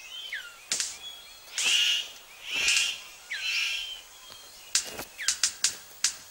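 Male superb bird of paradise in courtship display: sharp clicks and snaps, two rasping hiss-like bursts, and a quick run of clicks near the end, over other forest birds' whistled calls.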